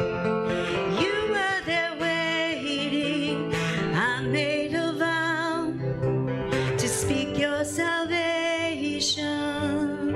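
Music: a song with a singing voice over instrumental accompaniment.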